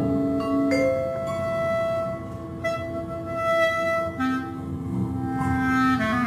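Slow contemporary chamber music for clarinet, piano and vibraphone with electronics: long held tones overlap while single struck notes enter one after another, about every second, and ring on.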